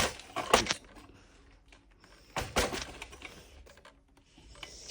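Knocks and clatter of a stand fan's plastic parts being handled: a cluster of sharp knocks at the start, another about two and a half seconds in, and a soft rustle near the end.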